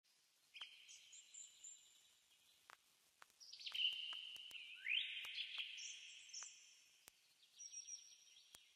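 Faint birdsong: a string of high trilled phrases, one of them rising in pitch about halfway through, with a few faint clicks in between.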